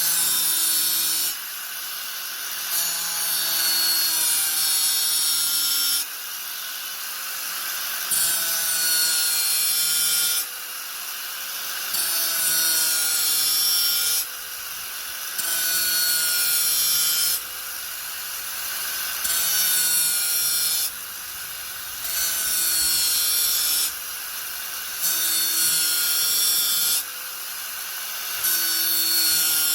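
Angle grinder running continuously, its disc pressed into the work in repeated passes about every three seconds: each pass brings a loud, hissy grinding over the motor's whine, and between passes the grinder spins free with a duller, quieter hum.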